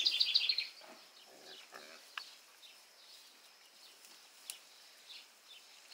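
A songbird's quick trill of repeated high notes in the first half-second, then a few soft, low grunts from pigs.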